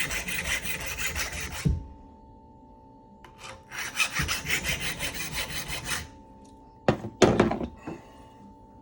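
Hand sharpener rasping along a lopper blade in fast back-and-forth strokes: one run that stops about two seconds in, and a second from about four to six seconds. A couple of sharp knocks follow near the end as the tool is handled.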